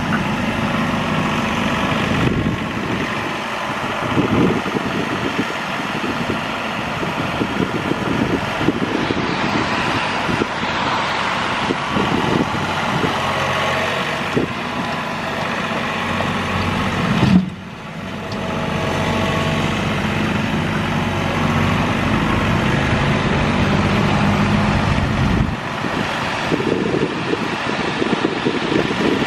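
John Deere compact diesel tractor running a snowblower, the engine holding steady under load as the blower throws snow. The note shifts a few times, with a brief sharp dip about two-thirds of the way through.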